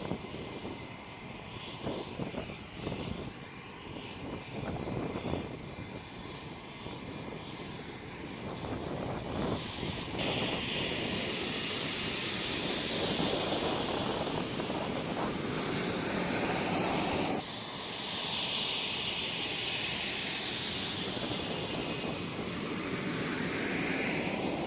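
Panavia Tornado's twin RB199 turbofan jet engines running with a steady high whine over a rushing roar, growing louder about ten seconds in.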